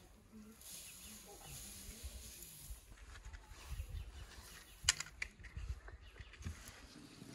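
Granulated sugar pouring from a plastic bowl onto strawberries in an aluminium basin: a soft, steady hiss. About five seconds in comes a sharp knock, the loudest sound, with a few lighter knocks around it as the bowl is handled.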